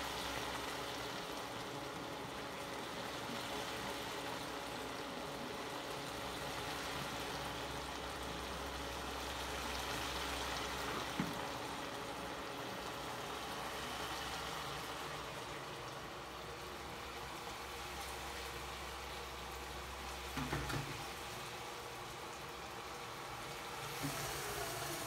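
Stir-fried vegetables and pork simmering in a pot: a steady sizzling hiss, with a low hum under it that stops about twenty seconds in. There is a single click about eleven seconds in, and a few light knocks near where the hum stops and again near the end.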